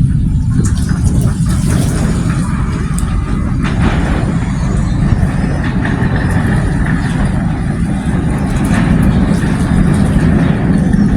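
Steady low rumble of a moving motor vehicle, with a faint high steady tone in the second half.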